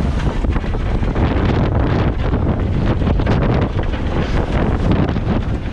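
Strong wind buffeting the microphone aboard a sailing yacht under way, a loud, steady low rumble.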